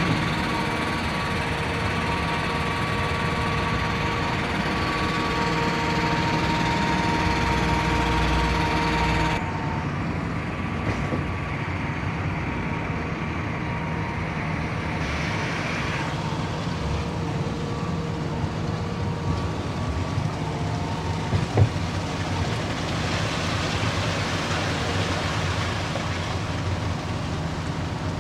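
Everdigm 36ZX truck-mounted concrete pump running: a steady diesel engine hum with machinery tones. The sound changes abruptly about a third of the way in, and a single sharp knock comes about three quarters of the way through.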